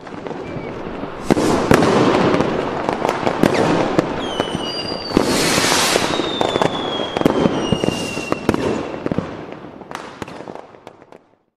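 Fireworks crackling and popping in a dense barrage, with a few long whistles sliding slowly down in pitch through the middle. It builds up at the start and fades out near the end.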